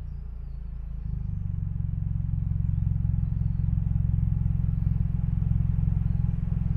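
Nissan NV350 Caravan's 2.0-litre QR20DE four-cylinder petrol engine idling steadily at the tailpipe, its exhaust note shaped by a Fujitsubo Authorize R aftermarket muffler and a Genb sports catalyser; the low hum gets a little louder about a second in.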